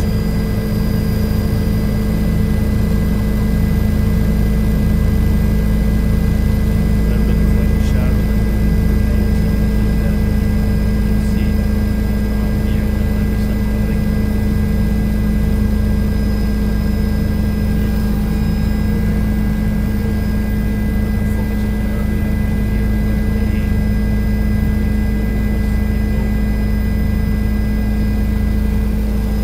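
Helicopter engine and rotor noise heard inside the cabin: a loud, steady drone with several constant whining tones over a low, gently pulsing rumble.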